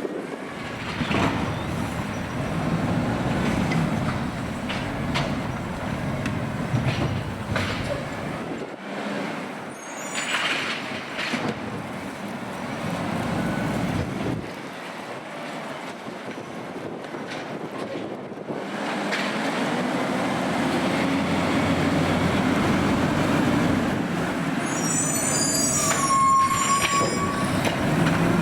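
AutoReach automated side-loader garbage truck running, its engine noise rising and falling as it works, with a brief high squeal near the end.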